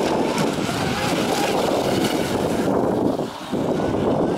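Wind buffeting the microphone, a dense rumble, over the distant running of a Hobbyking Piranha RC speedboat's brushless motor as it turns on the water. The wind drops off briefly about three seconds in.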